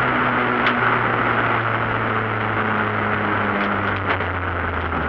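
Renault 21 Europa Cup engine running under way, heard from inside the cabin over road and wind noise. Its note drops in pitch about three and a half seconds in.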